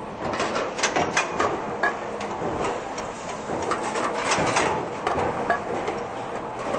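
Factory production-line noise: irregular sharp metallic clanks and knocks, several a second at the busiest moments, over steady machine noise.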